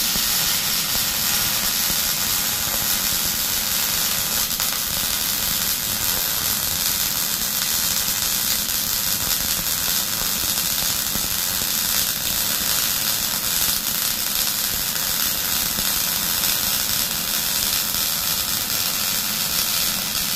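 Arc welder running one continuous bead on the steel backhoe bucket: a loud, steady crackling hiss that holds without a break for about twenty seconds.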